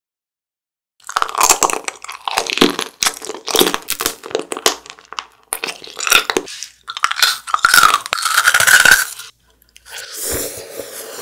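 Close-miked biting and crunching of hard frozen candy, a run of crisp crunches one after another, starting about a second in. Near the end, after a short pause, a softer, quieter chewing of sea grapes.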